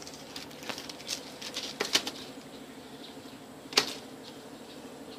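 Handling noise: plastic rustling and a run of light clicks and taps as squishy toys are taken out of a small plastic basket, with one sharper click about three-quarters of the way through.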